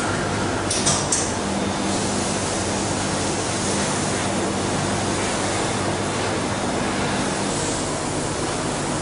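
ProArc ReaLaser CO2 laser cutting machine at work on sheet steel: a steady rushing hiss with a low hum beneath it, broken by two short sharp hisses about a second in. The hum drops out near the end.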